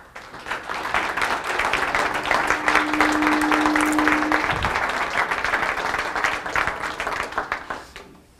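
Audience applauding: many hands clapping together, building within the first second, holding steady, then dying away about eight seconds in.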